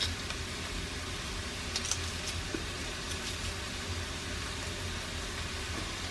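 Chopped onions sizzling gently in butter and olive oil in the pot, a steady soft hiss, with a few faint clicks around two and three seconds in.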